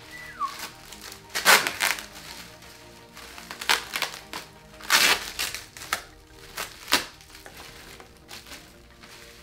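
Plastic bubble wrap and packing tape crinkling and ripping by hand in a series of sharp bursts, with quieter rustling between them and soft background music underneath.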